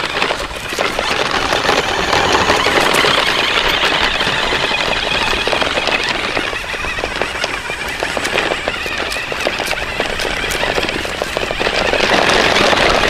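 A small battery-powered toy car's electric motor and gears running, giving a continuous rattling buzz with fine clicking.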